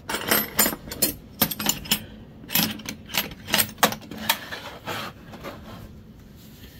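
Steel wrenches and hand tools clinking and clattering as they are gathered up and put into a small green S-K steel tool box, its metal lid shut on them. The handling gets quieter in the last couple of seconds as the box is pushed across the wooden bench.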